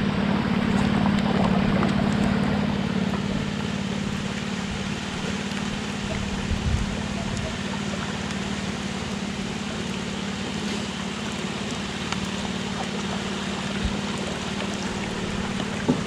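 Steady hum of a boat motor towing a line of kayaks, over the rush of water along the hulls.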